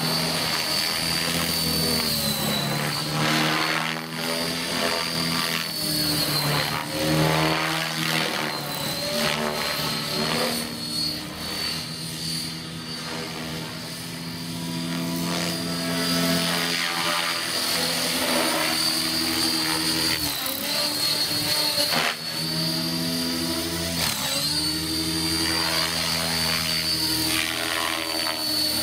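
Radio-controlled model helicopter in flight: a steady high whine from its motor over a low rotor hum. The sound swells and sweeps up and down in pitch several times as the helicopter passes and manoeuvres, and the whine dips briefly a few times.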